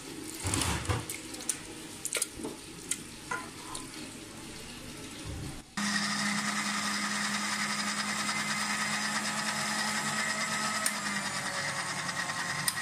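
Scattered knocks and scrapes as cooked tomatoes and onion are tipped from a bowl into a glass blender jar. About halfway through, the electric blender switches on suddenly and runs with a steady motor hum, pureeing the mix into pizza sauce.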